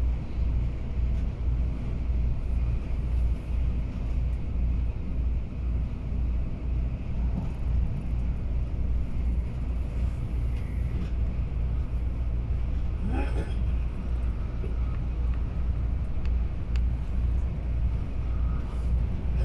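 Moving passenger train heard from inside the carriage: a steady, even low rumble, with one brief sharper sound about two-thirds of the way through.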